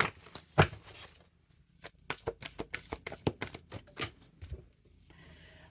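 Tarot cards being shuffled by hand: a string of quick, light card clicks, with one louder snap under a second in.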